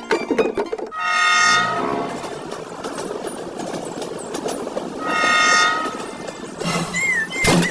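Train horn sounding twice, each blast about a second long and several seconds apart, over the steady rumble and clatter of a passing train, with a short wavering whistle near the end.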